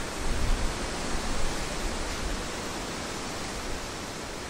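Wind on the microphone: gusty low buffeting that eases after about a second and a half, leaving a steady rushing hiss.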